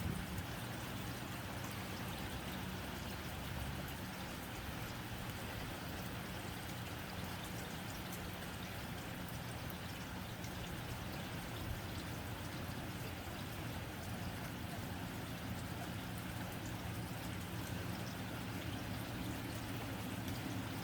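Steady rain falling on a tin roof: an even hiss of rainfall with many fine drop ticks on the metal.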